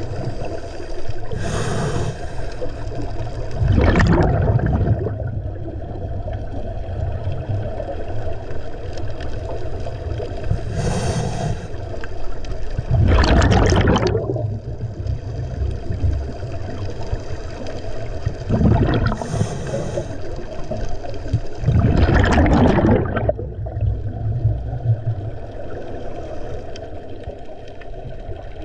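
Scuba diver breathing through a regulator underwater: three breaths about nine seconds apart, each a short hiss of inhaling followed about two seconds later by a louder rush of exhaled bubbles, over a steady low hum.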